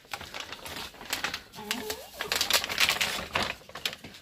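Rustling and scuffing noises, loudest in the middle, with a short, low call about halfway through.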